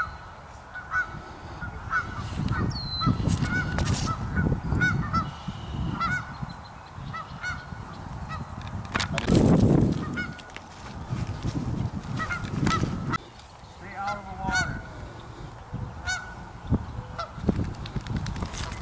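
Geese honking over and over from the nearby pond, with low gusts of wind buffeting the microphone that are strongest about halfway through.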